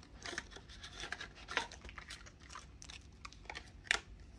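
Paper banknotes being counted by hand: soft rustling and crinkling of bills, with sharper snaps about one and a half seconds in and just before four seconds.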